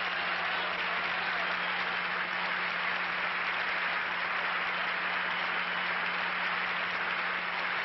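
Large theatre audience applauding steadily, with a faint low hum under it.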